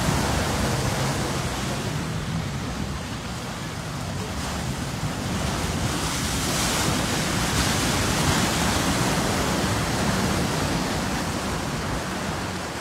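4x4 SUVs ploughing through a shallow stream, a steady rush of splashing and churning water, with a low steady hum beneath it.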